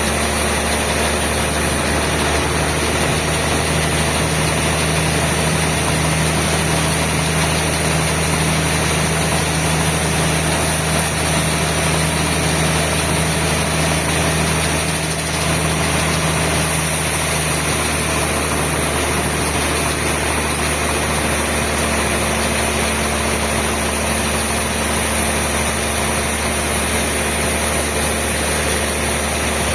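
Sawmill machinery running with a steady, loud mechanical drone and hum; the hum shifts to a slightly different pitch a little past the middle.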